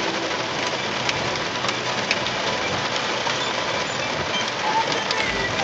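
Heavy rain pelting a car's windshield and roof, heard from inside the cabin: a steady hiss with scattered sharp drop hits.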